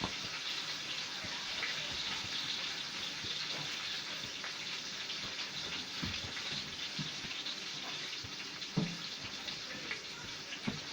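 Steady sizzle of a beef roast frying in hot grease in a skillet, with a few light knocks, typical of a knife on a cutting board.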